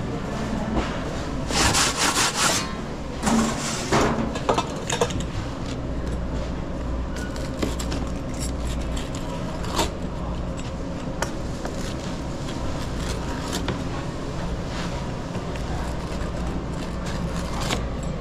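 Scraping and rubbing of kitchen tools on a hard surface: a run of short, rough scrapes in the first five seconds, then scattered light knocks and clicks over a steady low hum.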